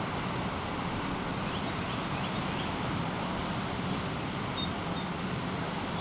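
Steady noise of heavy storm surf breaking on the shore, mixed with wind. A few faint, short, high chirps come through about two seconds in.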